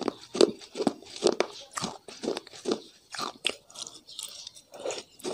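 A person biting and chewing crunchy food close to the microphone, a run of short crunches about two a second.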